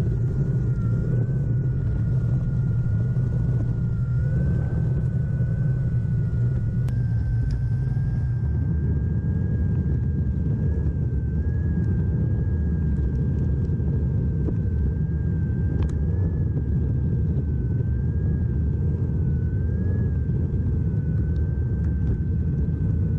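Mini electric skateboard on Ruff Stuff all-terrain wheels being ridden: a steady, slightly wavering motor whine over a loud rumble of wheels and wind.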